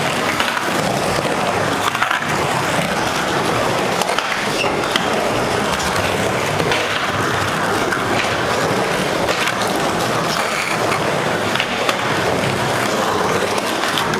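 Skateboard wheels rolling and carving around a smooth skate bowl: a steady rolling rumble, broken a few times by sharp clacks of the board.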